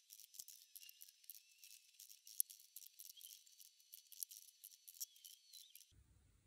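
Faint, rapid, high-pitched clicks and taps of small square wooden panels being set down one after another on a cardboard sheet, sped up, with one sharper click about two and a half seconds in; the tapping stops about six seconds in.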